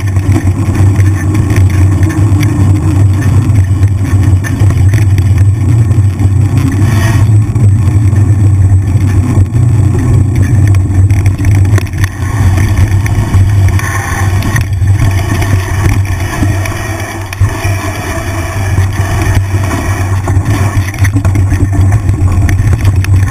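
Wind buffeting the microphone of a GoPro on a mountain bike riding down a dirt trail: a steady deep rumble, with occasional knocks and rattles from the bike over the ground.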